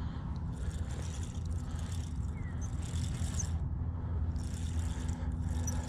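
Spinning reel being cranked in stretches as a hooked trout is reeled in, its whir pausing briefly about three and a half seconds in, over a steady low hum.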